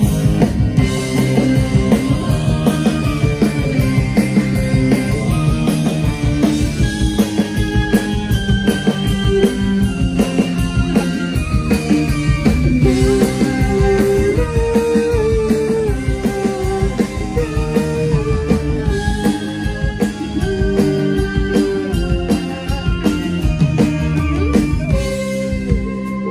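Live rock band playing an instrumental passage: a stepping melody line over bass and a drum kit keeping a steady beat.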